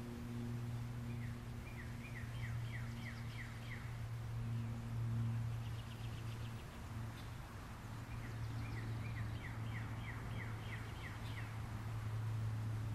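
A songbird singing two phrases of quick, falling chirps, one about a second in and another about eight seconds in, with a short rapid trill between them. A steady low hum runs underneath.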